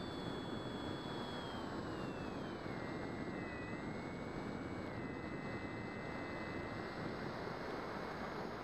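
Air rushing over the microphone of a camera riding on a Bixler foam RC plane in flight, with the thin high whine of its electric pusher motor. The whine drops in pitch about two to three seconds in, then holds steady.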